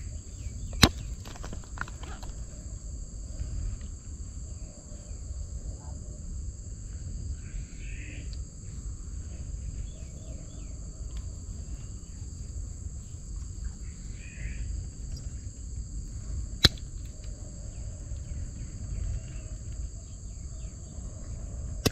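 Steady insect chorus of two high, continuous tones over a low rumble, with two sharp clicks, one about a second in and one about three-quarters of the way through.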